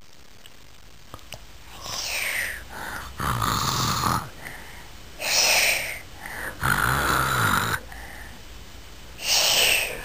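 A young child's pretend snoring, done in play: a few exaggerated snores in a row, rattling breaths in alternating with breathy blows out, each about a second long.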